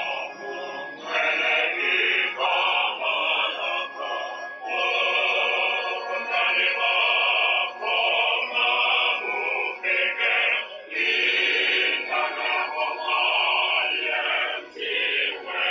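A group of voices singing a hymn, in phrases that break every second or so. The sound is thin and cut off in the treble, as in a radio broadcast.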